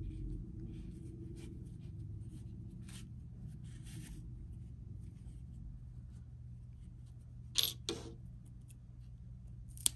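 Faint rustle of yarn being worked with a yarn needle over a steady low hum, then two sharp snips of scissors close together about three-quarters of the way through, and one more light click just before the end.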